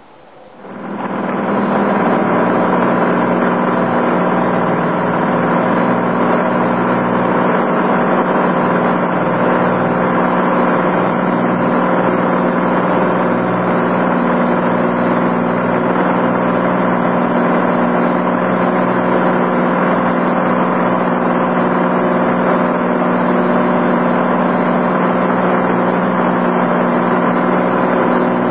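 Cessna 182 Amphibian's piston engine and propeller running steadily. The sound swells up over the first second or two, then holds at an even drone.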